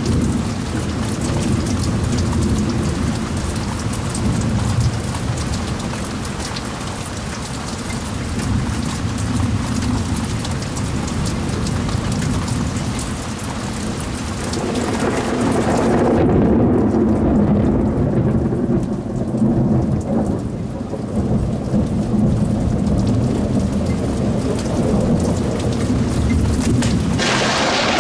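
Heavy rain pouring with a continuous low rumble of thunder. About fifteen seconds in, a long rolling thunder rumble swells and the hiss of the rain drops away. Near the end comes a sudden, louder burst of thunder.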